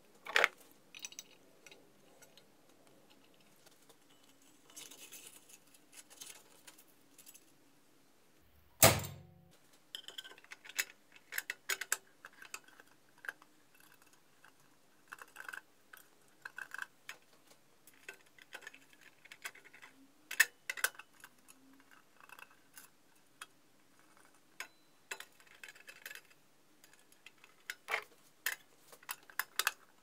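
Hand assembly of a multitool grinder attachment onto a bench grinder: scattered clicks and light knocks of parts being handled and fitted, with one loud thump about nine seconds in.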